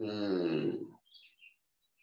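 A loud, voice-like call about a second long, falling in pitch, followed by small birds chirping faintly in short high bursts.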